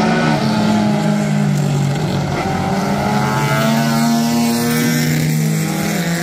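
Under-2-litre vintage sports car engines running hard on track. The engine pitch rises in the middle and drops near the end.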